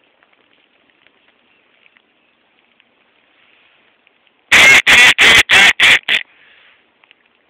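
Duck call (mallard-hen call) blown in a quick run of six loud quacks about four and a half seconds in, the last one short. A faint crackle lies underneath.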